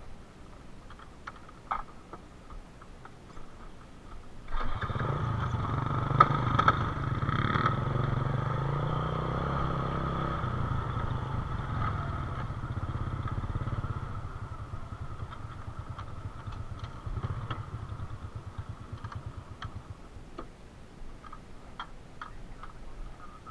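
A small engine comes in suddenly about four and a half seconds in and runs steadily for about ten seconds. It then drops to a fainter, pulsing run that dies away near the end.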